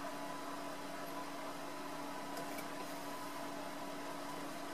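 Room tone: a steady hiss with a constant low electrical hum, and two faint light ticks about two and a half seconds in.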